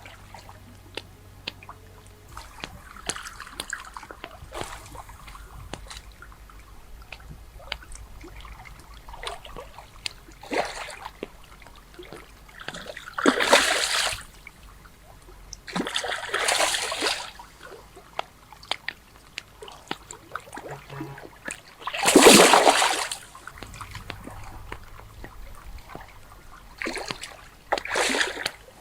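Water splashing in several short bursts, the loudest about two-thirds of the way through, with small clicks and trickling between them.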